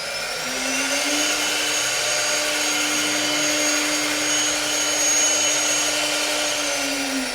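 Air-cooled HQD spindle of a CNC router, rated at 18,000 RPM maximum, running with no cut. It spins up with a rising whine, holds a steady high whine at its maximum sound for several seconds, then starts to wind down near the end.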